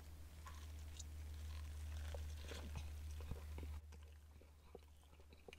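A man biting into and chewing a crispy chicken burger, faint crunching and wet mouth clicks. Under it a steady low hum that drops away sharply about four seconds in.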